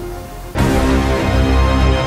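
Music: a quiet backing track, then a loud track with heavy bass starts suddenly about half a second in.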